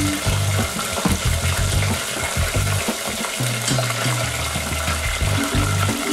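Hot oil sizzling in a deep-frying pot as battered whitefish is lowered into it near the end, for tempura. Background music with low notes plays underneath.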